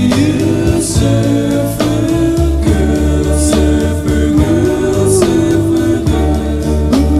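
Recorded song: a singer holding long, wavering notes over a steady bass beat, with a few cymbal-like splashes.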